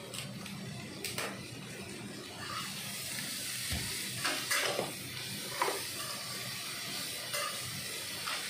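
Bean sprouts stir-frying in a wok on a gas stove, a steady sizzling hiss, with a few short scrapes and clinks of the spatula against the wok.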